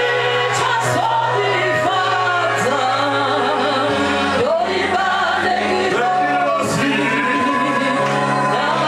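Gospel singing: a man sings into a microphone with other voices joining in, over steady held low accompaniment notes that change pitch about four seconds in.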